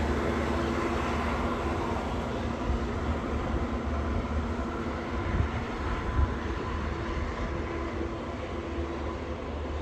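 Long Island Rail Road diesel push-pull train of bilevel coaches rolling away, a steady low engine hum and wheel rumble slowly fading. A few sharp wheel clacks come through the middle.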